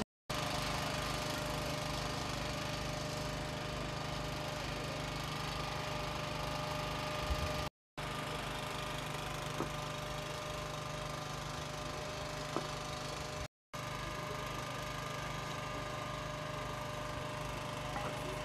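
An engine running steadily at idle, with a regular low pulsing and a steady whine above it. The sound drops out suddenly and briefly twice, at edit cuts.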